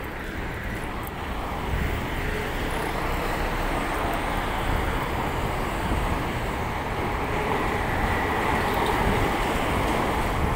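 Street traffic noise: a steady mix of road vehicles running, growing slightly louder about two seconds in.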